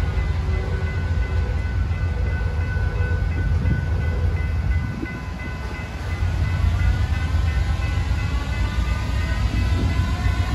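Union Pacific diesel locomotives rolling slowly past at close range: a heavy low engine rumble with faint high whining tones on top. The rumble dips briefly about halfway through as the gap between two units goes by, then picks up again as the next locomotive arrives.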